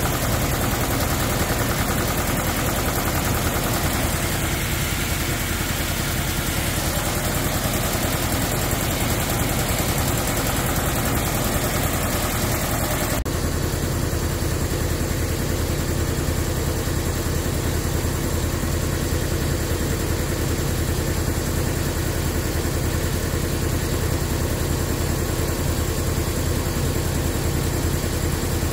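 Large shop air compressor running steadily under test, a loud continuous motor hum. About 13 seconds in there is a click, after which the low hum is stronger.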